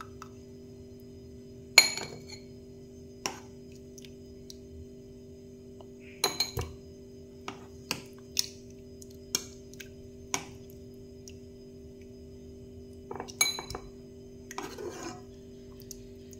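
A spoon or ladle clinking against glasses and a cooking pot as boiled pears are transferred one at a time. About a dozen separate sharp clinks with brief ringing, a few in quick clusters, and a short scraping rustle near the end.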